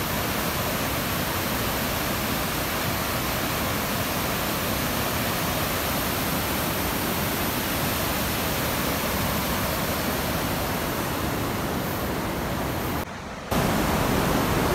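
White-water mountain river rushing over boulders, a steady, even roar. About 13 s in it cuts out for half a second, then comes back a little louder.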